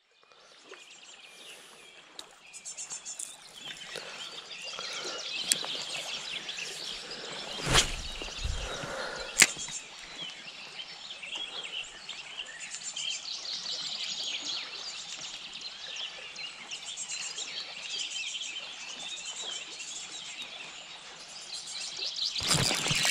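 Riverside ambience fading in from silence: birds singing over a steady rush of river water. A few sharp clicks and a knock break in partway through.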